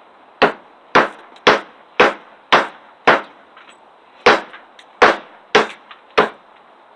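Survival multi-tool hatchet striking wood in a run of sharp blows: six at about two a second, a short pause, then four more.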